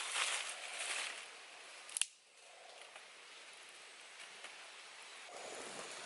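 Dry grass kindling catching fire in a small stone fire ring: hissing and crackling loudly at first, then a single sharp snap about two seconds in. Near the end the fire burns more fully with a dense, steady crackle.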